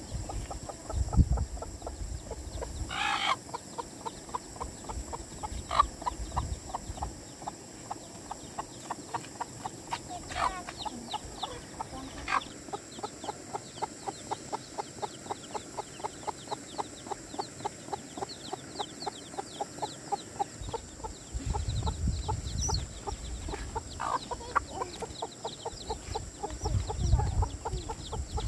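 Chickens clucking: a long, even run of short clucks at about three a second, broken by a few louder calls, over a steady high tone, with some low rumbling near the end.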